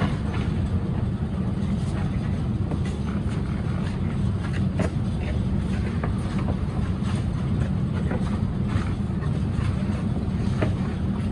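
Steady low rumble with scattered light clicks and knocks.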